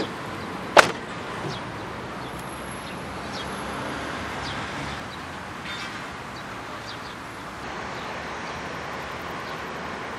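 A Mitsubishi Dion's front door shut once about a second in, a single sharp thud as it closes against its rubber door seal, which is presented as a good one. After that there is steady outdoor background noise.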